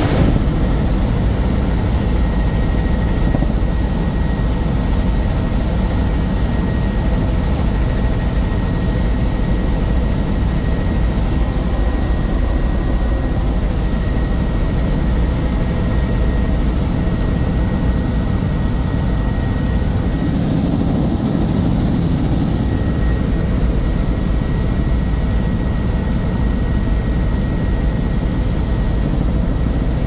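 Helicopter engine and rotor running steadily in flight, heard from inside the cabin, with a faint steady high whine over a dense, even drone.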